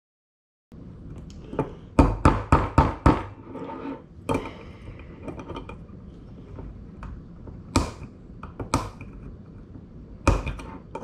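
A small metal keychain opener tool clicking and knocking against a glass beer bottle's crown cap as it is worked to pry the cap off, the cap not yet giving. A quick run of about six sharp clicks comes about two seconds in, then single clicks every second or two.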